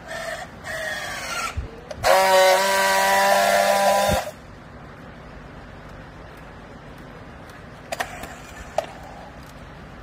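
Battery-powered handheld strapping tool working a plastic strap: two short motor whirs as it tensions the strap, then a loud steady buzz for about two seconds as it friction-welds the seal. A couple of light clicks near the end.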